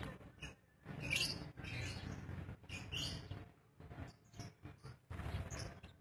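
Lovebirds chirping: short, high calls coming in scattered bursts, over a low background rumble.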